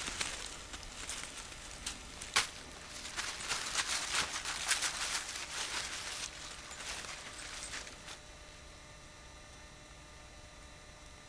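Footsteps crunching and rustling through dry leaf litter, with a sharp snap about two and a half seconds in. The steps stop about eight seconds in, leaving a faint steady hiss.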